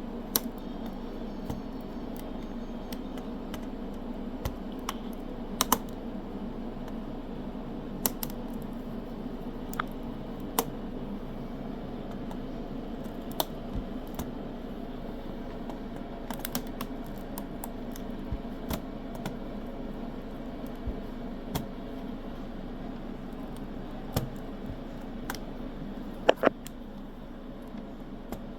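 Scattered plastic clicks and taps from a laptop keyboard being pried out of its bezel with a flathead screwdriver, over a steady low hum. Two clicks stand out louder, one about six seconds in and one near the end.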